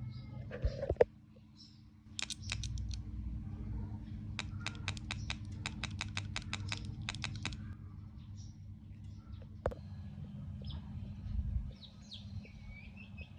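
Rapid, evenly spaced mechanical clicking in two bursts, the longer one about six or seven clicks a second for some three seconds, typical of an electronic paintball marker's trigger being cycled; a single sharp click follows later, over a steady low hum and faint bird chirps.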